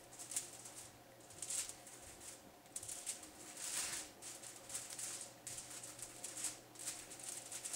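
Sharp knife slicing a raw pork loin laid on aluminium foil, opening it out into a flat sheet: faint scraping and rustling strokes, about one a second.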